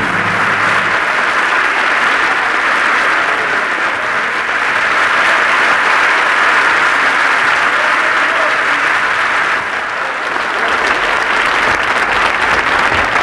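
A large studio audience applauding, a dense and sustained clapping. The last note of the backing music stops about a second in, leaving only the applause, which dips briefly about ten seconds in.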